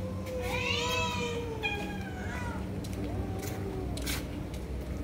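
Domestic cats meowing to be fed: one long meow that rises and falls, then a shorter one, then a fainter third.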